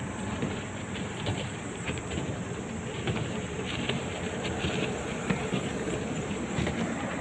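Insects droning steadily at a high pitch over an even, low rumble of outdoor noise, with a few faint ticks.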